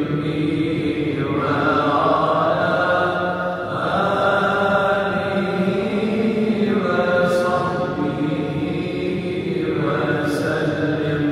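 Voices chanting the Ottoman-style salawat (durood) on the Prophet, in long held melodic phrases that break off about every three seconds over a steady low held note.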